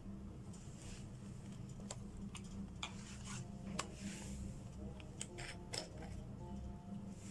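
Small bottles and lids handled on a wooden desk: a scatter of light clicks and taps, a few clinks ringing briefly near the end, over a steady low hum.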